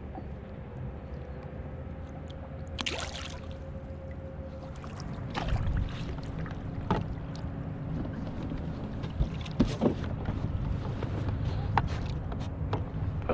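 Water moving against a kayak's hull over a steady low rumble, with a short hiss about three seconds in and scattered knocks and clicks of gear on the boat.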